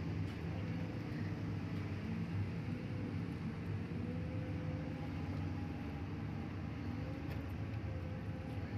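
Heavy truck engine running steadily under load, with its pitch wavering slightly.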